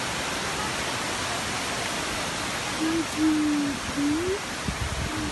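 Waterfall rushing steadily, a dense even hiss of falling water. About three seconds in, a low held hooting note sounds over it for a second and a half and rises at its end.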